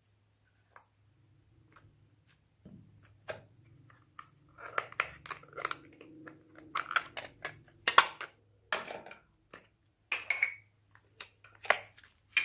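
Slime being squished and worked by hand, making wet, sticky crackles and sharp clicking pops. It starts quietly and becomes dense and louder after a few seconds.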